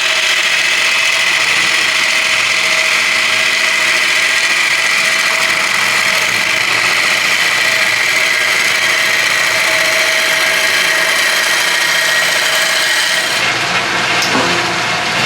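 Wood lathe spinning a bowl while a gouge hollows out the inside: a steady hiss of cutting wood over the machine's steady hum. Near the end the hiss thins out as the cut eases.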